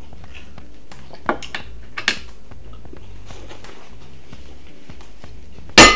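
Sounds of tableware during a meal: a few small clicks and taps, then near the end one sharp clink that rings briefly.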